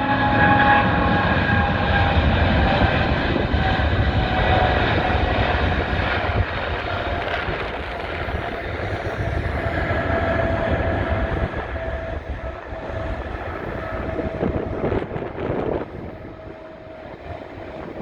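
Boeing 777-200ER's twin GE90 turbofans at takeoff thrust: a loud jet roar with whining tones that slowly fall in pitch as the airliner passes and climbs away, fading over the last few seconds.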